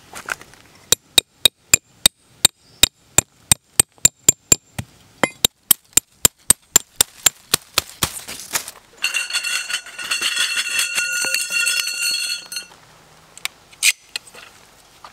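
A small metal hammer driving metal tent stakes into the ground: about two dozen sharp, ringing strikes at roughly three a second. After them comes a few seconds of rasping metallic scraping, then a few clicks.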